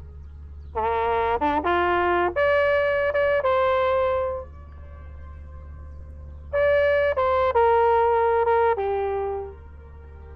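Brass instrument playing two short melodic phrases of held notes with a pause between them, over a steady low hum.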